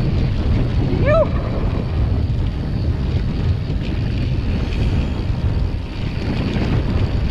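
Wind buffeting the camera microphone and the rumble of a mountain bike's tyres rolling fast over a dry dirt trail. About a second in, a short pitched call rises and falls once.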